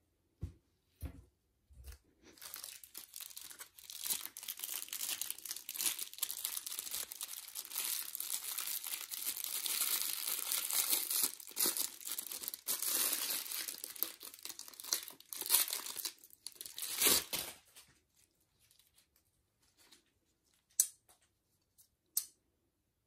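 Clear plastic packaging sleeve crinkling and tearing as a pair of metal barbecue tongs is unwrapped, continuous for about fifteen seconds and then stopping. A few soft knocks come at the start, and a few sharp light clicks come near the end.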